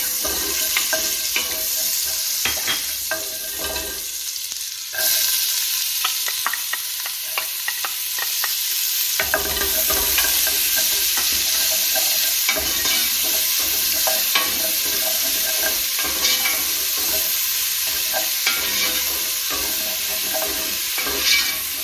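Diced onions frying in olive oil and butter in a pan, a steady sizzle with the scrape and tap of a utensil stirring them. The sizzle gets louder about five seconds in.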